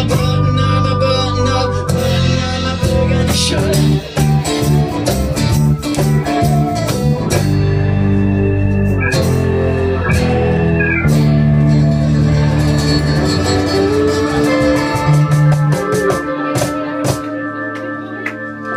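A live rock 'n' roll band playing in a bar, led by acoustic guitar with strong low notes and a steady beat under it. A man sings into the microphone at the start, then the music carries on as an instrumental stretch.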